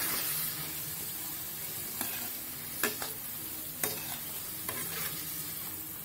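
Chopped radish sizzling in oil and water in a metal kadai while being stirred with a metal spatula. The spatula scrapes the pan and clinks against it about five times around the middle.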